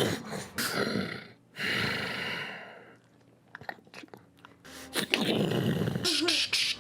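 Mouth-made sound effects: breathy hissing noises, then a quiet stretch of small clicks about three seconds in, then a louder, rough, noisy effect near the end.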